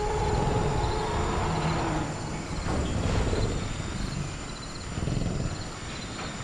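Velociraptor creature sound effect: a low growl, with a pitched call over the first two seconds that drops in pitch as it ends, then further rumbling growls. Crickets chirp steadily behind it.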